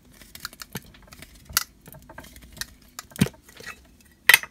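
Metal lid of a Funko Soda collectible can being worked off by hand: a run of small scattered metal clicks and scrapes, with louder sharp clicks near the end.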